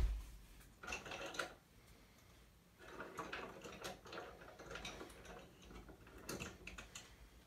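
Hard plastic toy parts being handled: a sharp knock at the start, then scattered faint clicks and rattles.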